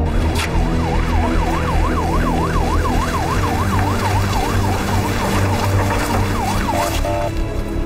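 Police car siren wailing in a fast up-and-down yelp, about three sweeps a second, cutting off about seven seconds in.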